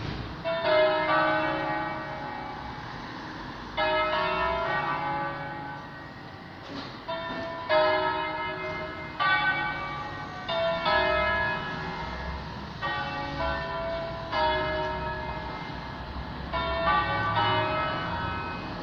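Church bells ringing in a bell tower: several bells struck in turn, a stroke every one to four seconds, each ringing on and slowly fading.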